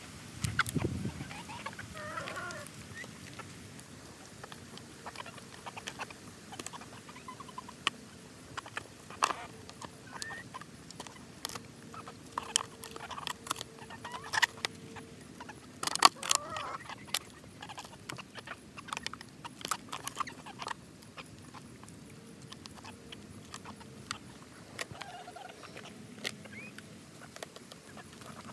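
Chickens pecking crumbled cake from an aluminium foil pan: scattered sharp taps of beaks on the food and foil, with a few short clucks.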